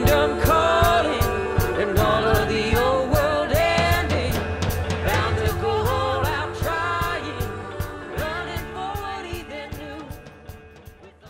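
Background music: a gospel song with singing voices over a steady beat, fading out gradually through the second half.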